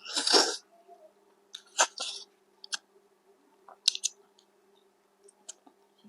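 A person eating pilaf by hand, with mouth sounds of chewing and lip smacks heard as scattered short clicks. A short, loud, noisy rush comes right at the start, and a faint steady hum runs underneath.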